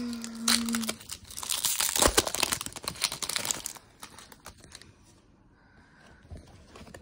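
A foil-plastic wrapper of a 2021 Topps Series 2 baseball card pack being torn open and crinkled for about four seconds, then dying down to faint rustling.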